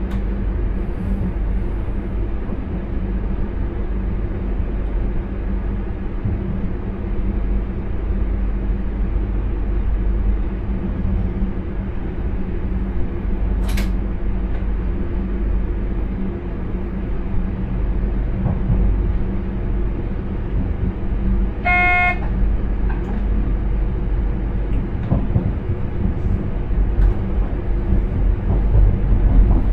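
Steady low running rumble inside the driver's cab of an intercity train in motion. A sharp click comes about 14 seconds in, and a brief high-pitched toot about 22 seconds in.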